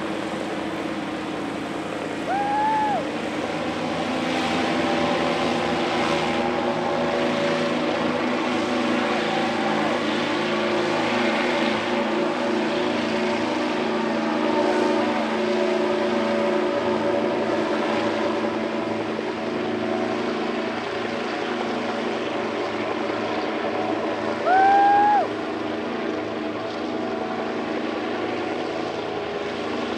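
Propeller engines of a hybrid airship in flight, droning steadily with a many-pitched hum. Twice a short whistle-like tone rises and levels off: once early, and once more loudly about 25 seconds in.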